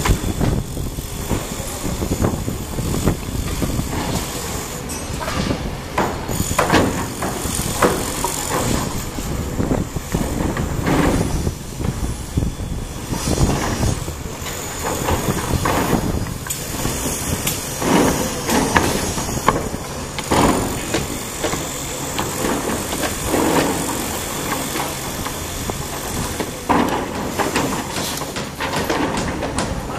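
Sumitomo SH480 hydraulic excavator at work: its diesel engine runs steadily, with irregular knocks and clatter from the machine working throughout.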